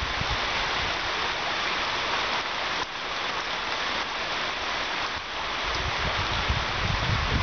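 Heavy rain pouring down on a paved patio and garden: a steady, even hiss. A low rumble builds in the last couple of seconds.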